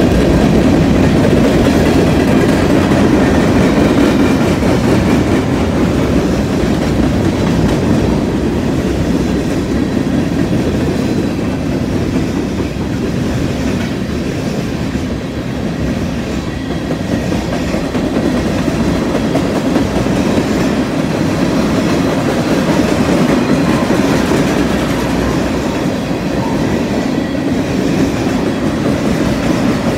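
Freight train's covered hopper and tank cars rolling past close by: a loud, steady noise of steel wheels running on the rails, heaviest in the low range, easing slightly about halfway through.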